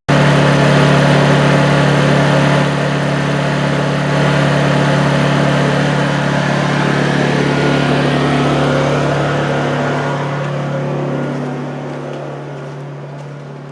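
Honda eu2000i inverter generator's small single-cylinder four-stroke engine running steadily and loudly, heard close up, growing gradually quieter over the last few seconds.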